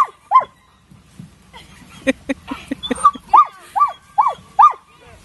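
A dog barking repeatedly in short, high yaps, two or three a second. About two seconds in there is a quick run of lower, shorter barks.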